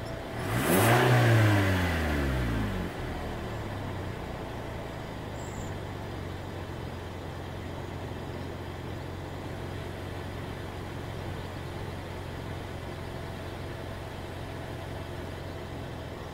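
2018 Toyota Camry SE engine given a single quick rev: the pitch rises and falls back over about two seconds, then the engine settles to a steady idle.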